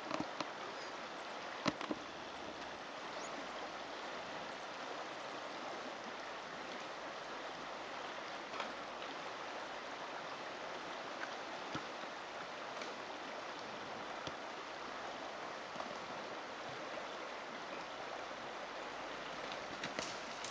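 Steady rush of flowing water. A few short, sharp clicks over it, several in the first two seconds.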